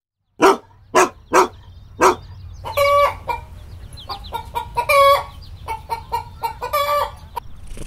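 Chickens clucking: four sharp single clucks in the first two seconds, then several birds clucking over one another, with three louder drawn-out squawks.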